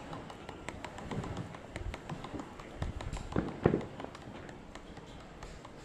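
Surfskateboard ticking: many small, irregular clicks, with a couple of heavier knocks about three and a half seconds in.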